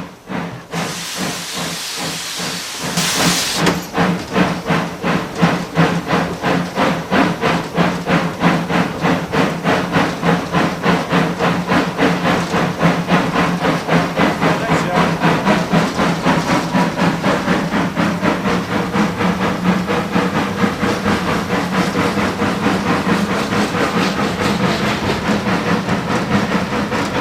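A WWII Kriegslok steam locomotive starting away, heard from the footplate: a loud burst of steam hiss for the first few seconds, then its exhaust beats set in and quicken steadily as the engine gains speed.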